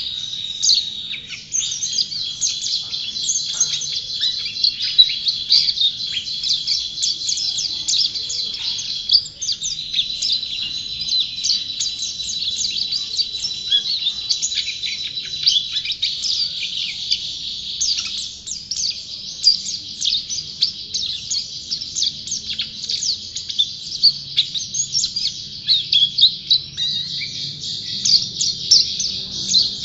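A white-eye (pleci) songbird singing continuously in a fast, unbroken stream of high chirps and twitters, the nonstop 'gacor' song that fanciers prize.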